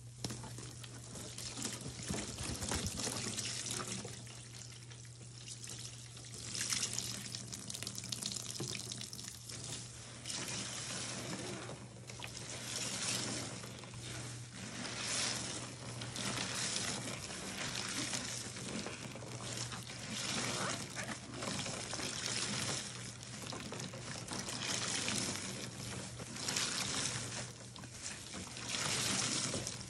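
Soapy water pouring and dribbling out of a suds-filled sponge squeezed in rubber-gloved hands and splashing back into a tub of foamy water. The squeezes repeat about every second and a half.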